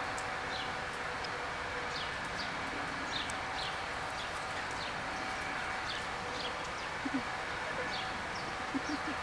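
A small bird chirping: short, high, falling chirps about twice a second, over a steady outdoor hum, with a few brief low sounds near the end.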